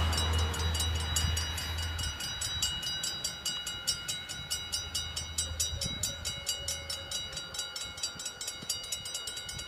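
Level-crossing warning bells ringing in a rapid, even rhythm, about four strikes a second. Under them the low rumble of the departing GTW diesel multiple unit fades away in the first two seconds.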